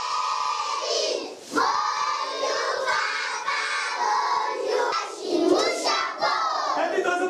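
A group of young schoolchildren singing together in unison, their voices held in long notes with short breaks between phrases.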